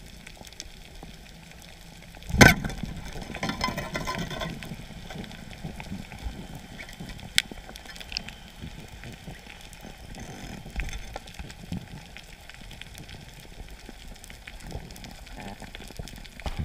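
Underwater, a speargun fires with one sharp loud crack about two seconds in, followed by a couple of seconds of rattling as the spear strikes and the speared fish thrashes on the shaft. A steady faint crackle of reef noise runs underneath, with a few small clicks later.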